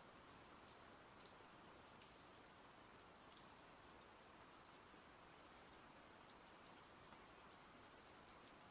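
Faint, steady rain, with light scattered drop ticks.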